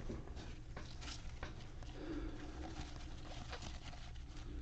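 Trading cards and pack wrapping being handled: faint light rustles, slides and small ticks, irregular.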